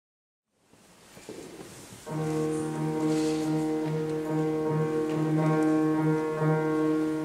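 Boys' choir singing a long, steady held chord, coming in suddenly about two seconds in after faint room noise.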